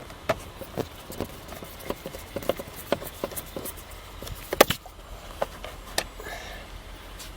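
Irregular light clicks and taps as a Phillips screw is worked out of the plastic steering column cover, with one sharper knock a little past halfway.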